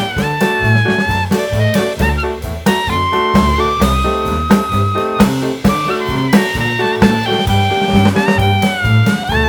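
Background music: an upbeat jazz/swing tune with a horn melody over a walking bass and a steady drum beat.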